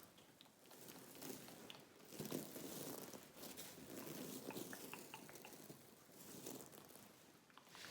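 Close-miked ASMR mouth sounds: gum chewing with small, scattered wet clicks in soft, irregular swells.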